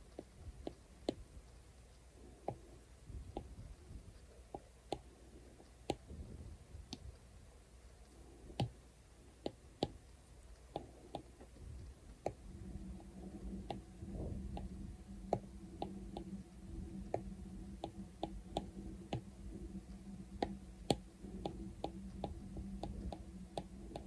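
An Apple Pencil's hard tip tapping and clicking on an iPad's glass screen in irregular, sharp clicks while painting. A low steady hum comes in about halfway through and carries on.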